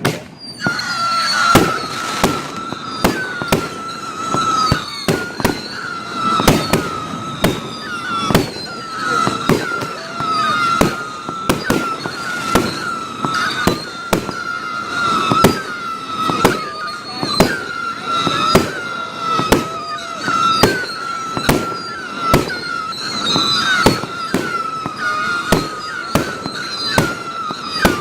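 Fireworks display: a rapid string of sharp bangs, one or two a second, over a steady, wavering high whistle.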